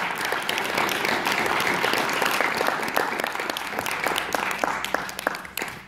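Audience applause, many hands clapping together, dying away near the end.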